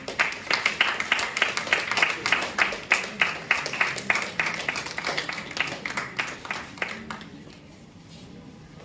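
Audience applauding, with sharp claps standing out at about three a second; the clapping dies away about seven seconds in.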